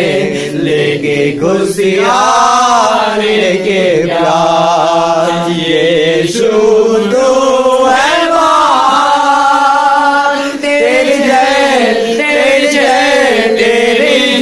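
A group of voices singing a Hindi Christian worship song together, loud, with held notes that slide between pitches.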